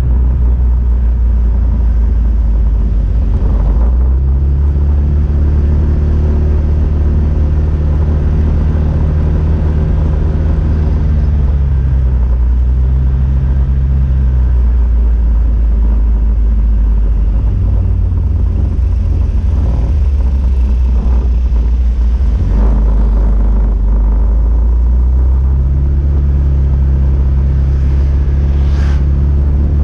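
Motorbike engine running at low road speed under a heavy rumble of wind on the microphone, its pitch stepping up and down several times with the throttle. A short rising whine comes near the end.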